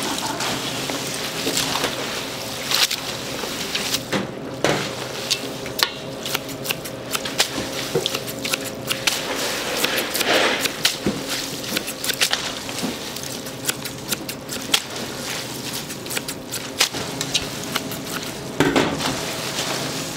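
Japchae being mixed in a large bowl: wet squishing with frequent short clicks and clinks of dishes, over a steady hum.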